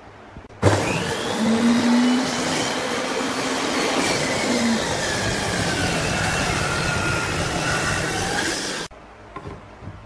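Table saw cutting a pine board: a loud, steady cutting noise with a whine that wavers in pitch. It starts suddenly about half a second in and stops suddenly near the end.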